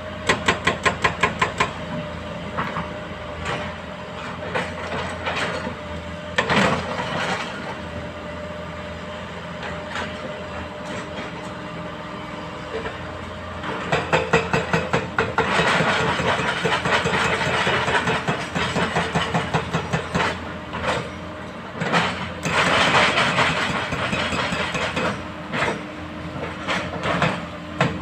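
Heavy diesel engines of excavators and a dump truck running steadily, with repeated clanking and rattling of metal. There is a fast rattle at the start, and louder stretches of noise about halfway through and again near the end.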